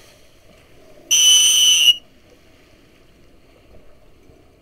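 One sharp blast on a hand whistle, a steady high-pitched tone lasting just under a second, blown close to the microphone. Low wind and water noise runs under it.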